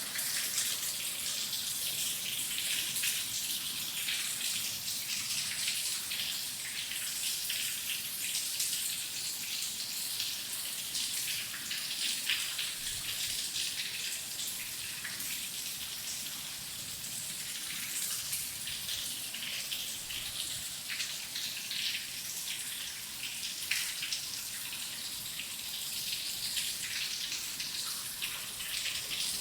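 Steady rain falling, a continuous hiss with many close, crisp drop impacts.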